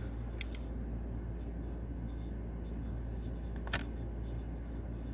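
A few sharp clicks from handling laptop parts during a RAM module swap, over a steady low hum. Two clicks come close together about half a second in, and a louder one comes a little past the middle.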